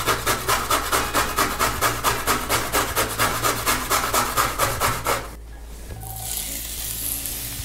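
Carrot being grated on a metal box grater, quick even rasping strokes about five a second, which stop about five seconds in. About six seconds in, chopped onion and grated carrot go into hot oil in a frying pan and start to sizzle.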